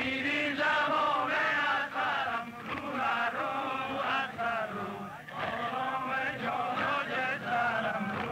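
A large crowd of men chanting together in unison, in a rhythmic chant that goes in repeated phrases, with a brief dip about five seconds in.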